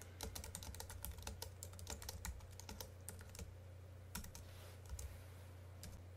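Faint computer keyboard typing: quick runs of key clicks that thin out to a few scattered clicks after about three and a half seconds, over a steady low hum.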